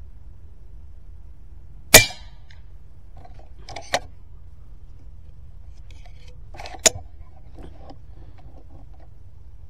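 Skout Epoch PCP air rifle firing a slug: one loud, sharp shot about two seconds in, then a run of mechanical clicks as the action is cycled, and another sharp crack near seven seconds followed by more clicking.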